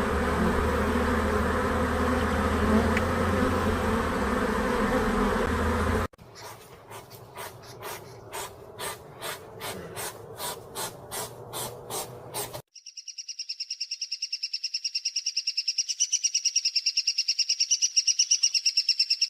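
A run of insect sounds: about six seconds of dense buzzing, then a sharp chirp repeated about twice a second, then a steady high-pitched trill for the last several seconds.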